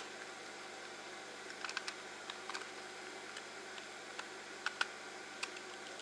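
Scattered light clicks and taps from a plastic computer mouse shell being handled and pressed back together, over a steady hiss.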